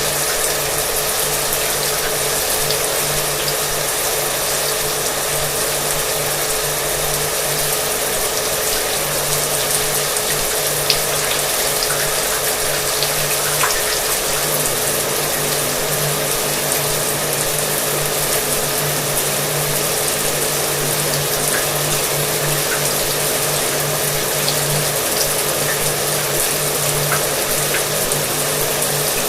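Shower water running with a hair dryer blowing in the background: a steady hiss of spray over the dryer's even motor hum, with a few faint ticks.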